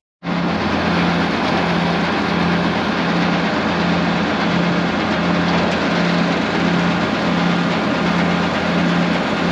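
BIG BITE tub grinder running, powered by a John Deere tractor, shredding a round hay bale in its turning tub: a steady rushing, grinding noise over the tractor engine's hum. The hum pulses a little more than once a second, and a short dropout opens the sound.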